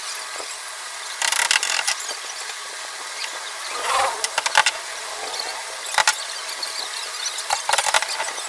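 Wooden lattice strips being knocked and clattered into place on a door frame: sharp wooden clicks and knocks in short clusters, with a brief squeak about four seconds in, over a steady hiss.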